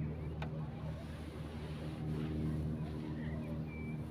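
A motor engine running steadily, a low hum at an even pitch. Faint bird chirps sound over it, with a short bird whistle near the end.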